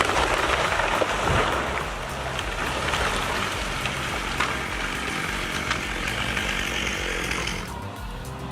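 Chainsaw running steadily as it cuts through wood, with a few sharp cracks, under background music. The saw cuts off near the end.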